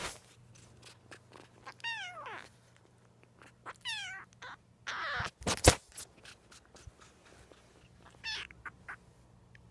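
Young kitten meowing, three high calls: one about two seconds in, one near four seconds, and a short one near the end. A sharp knock a little past halfway, after a brief rustle, is the loudest sound. The cries fit a kitten that calls out when it gets sleepy.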